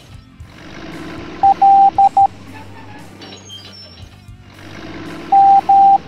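Morse code beeps in a single steady tone over background music. About a second and a half in, the beeps spell dot-dash-dot-dot, the letter L. Near the end they spell dash-dash, the letter M.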